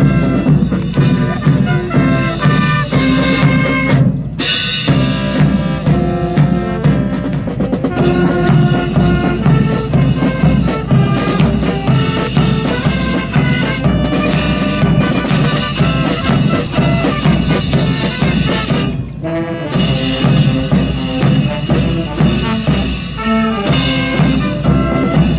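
Marching band playing a march live: trumpets, euphonium and sousaphone over snare drums, bass drum and crash cymbals keeping a steady beat, with short breaks about four seconds in and again near the end.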